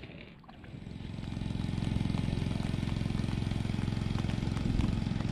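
Small engine running steadily, growing louder over the first two seconds and then holding even.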